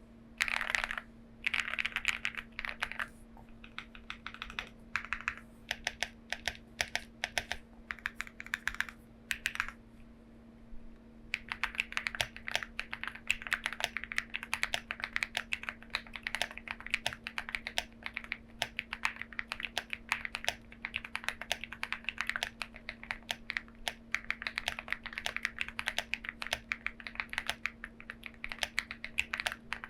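Lucky65 mechanical keyboard with lubed Dopamine switches and tuned plate-mount stabilizers being typed on. Short, scattered runs of keystrokes give way, about ten seconds in, to fast continuous typing. A faint steady hum sits underneath.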